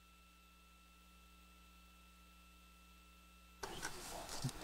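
Near silence on the broadcast audio: only a faint steady electrical hum with a few thin tones. About three and a half seconds in, a sudden rise of crackling noise comes in.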